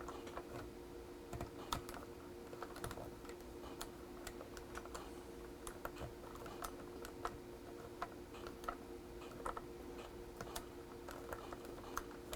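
Irregular plastic clicks of a Kraft KC3 joystick's buttons and stick being worked during play, roughly one or two a second, over a faint steady hum.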